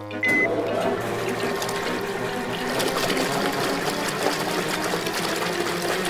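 Cartoon sound effect: a short high beep as a button is pressed, then a steady swirling, flushing rush of liquid, like a whirlpool.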